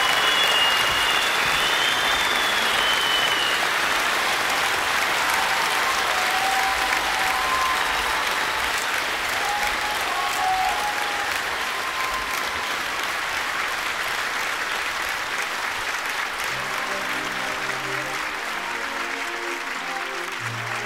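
Concert audience applauding at the end of a show, with a few high whistles in the first three seconds; the applause slowly dies down, and after about sixteen seconds low bass and keyboard notes of music begin under it.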